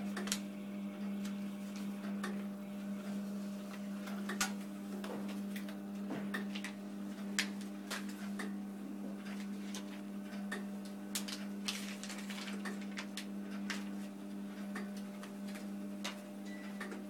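FR-770 continuous band sealer running with a steady electric-motor hum as its sealing belts and conveyor turn, overlaid by irregular clicks and crinkles of plastic pouches being handled and fed onto the conveyor.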